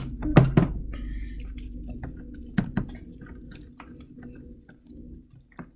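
Slime being kneaded and squished by hand as activator is worked in: sticky squelches and small clicks, with a louder bump about half a second in.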